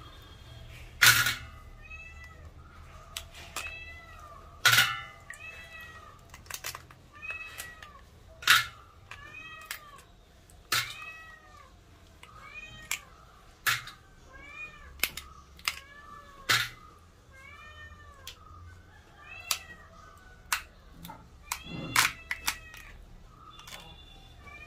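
A cat mewing over and over in short rising-and-falling calls, about one a second. Loud sharp clicks or cracks come every few seconds.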